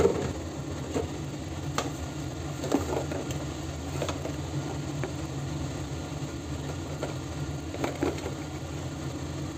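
A steady low mechanical hum, with a few short faint pops and clicks from chicken simmering in liquid in a stainless steel wok.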